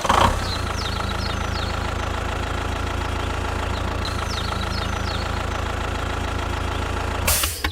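Small engine idling steadily with a rapid low knocking pulse, starting with a brief surge and cutting off near the end after a short burst of noise. Birds chirp briefly twice in the background.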